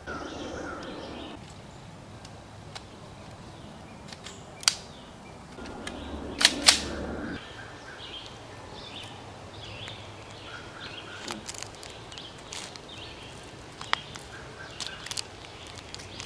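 Outdoor ambience with a few sharp clicks or snaps. The loudest is a close pair about six and a half seconds in, and there are faint chirps in the background.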